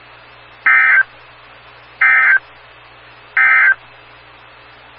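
Emergency Alert System end-of-message data tones on a weather radio broadcast: three short, loud bursts of digital data squawk, each about a third of a second and spaced about 1.3 seconds apart, over a steady background hiss. They signal the end of the alert message.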